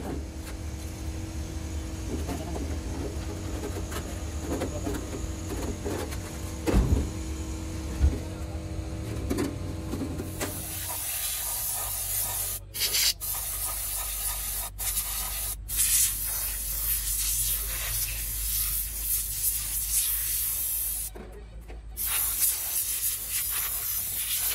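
Compressed-air spray gun hissing in long blasts as it sprays a cleaning mist over an excavator swing motor housing, breaking off briefly several times as the trigger is released. Before the spraying starts, about ten seconds in, there is only a steady low hum and a few light knocks of metal parts being handled.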